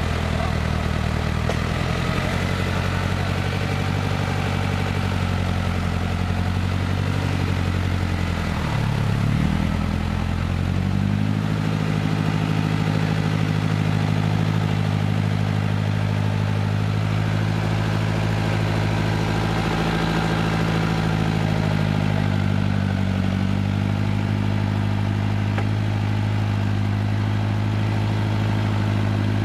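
Off-road 4x4's engine running steadily at low revs, dipping in speed about nine seconds in and picking up again a couple of seconds later.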